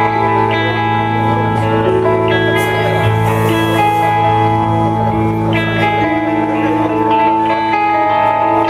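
Live instrumental music led by guitar, playing a slow melody of long held notes over a steady low drone.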